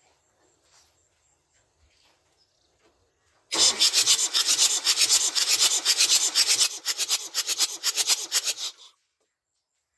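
Land Rover 12J 2.5-litre diesel engine being cranked over on its starter motor, a fast, even run of pulses lasting about five seconds, starting about three and a half seconds in and stopping abruptly. With the fuel cut off and the glow plugs out for a compression test, the engine turns but does not fire.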